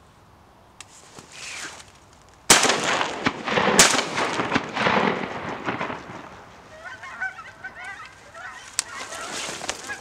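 A flock of Canada geese honking, breaking out suddenly and loudly about two and a half seconds in with a sharp knock, and another knock about a second later. The honking tapers into softer, higher chattering calls near the end.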